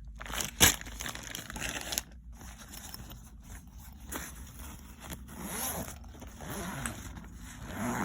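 A small tool bag and its contents being handled: rustling, scraping and small clicks, with one sharp click about half a second in.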